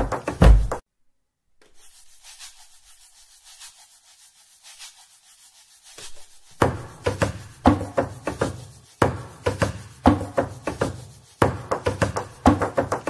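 Background music with dense hand percussion. It cuts out abruptly about a second in, and only a faint rustle is heard until about six seconds, when the percussive music comes back.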